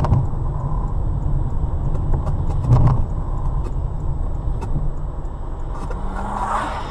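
Car driving on a wet winter road, heard from inside the cabin through a dashcam: a steady low road and engine rumble with scattered clicks, a loud thump about three seconds in, and a hiss near the end.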